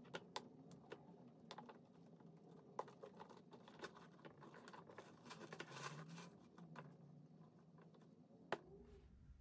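Faint rustling of fabric protective inserts being pulled out from under a leather handbag's flap, with scattered small clicks and taps as it is handled, one sharper click near the end.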